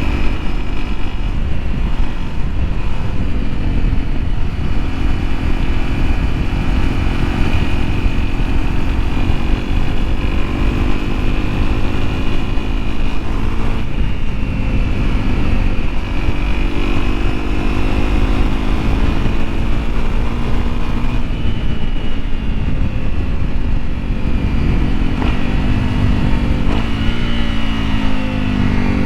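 Honda CRF250L's single-cylinder four-stroke engine running on the move, its revs rising and falling, over a heavy low rumble. Near the end the engine pitch climbs as it accelerates.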